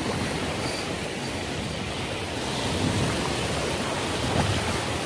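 Small waves washing and breaking in the shallows: a steady rushing noise, heaviest in the low end.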